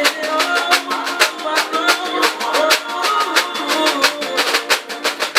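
Brazilian pagode song playing, with a reco-reco-style scraper (reco de esteira) scraped along in fast, even strokes.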